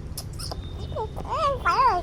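A four-month-old baby cooing and squealing: a few short high-pitched vocal sounds that rise and fall in pitch, loudest in the second half, over a steady low background hum.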